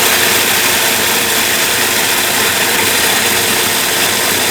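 Food processor motor running steadily, its blade chopping dry rolled oats into a coarse half-flour.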